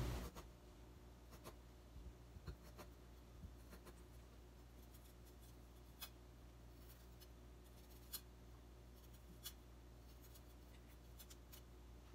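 Faint, scattered clicks of a kitchen knife cutting small pieces of carrot over a plastic cutting board, a few soft taps several seconds apart.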